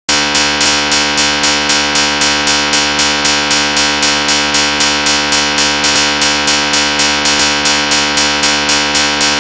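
Loud, harsh electronic test sound: a dense chord-like buzz of many overtones, pulsing a little under four times a second. It starts and stops abruptly.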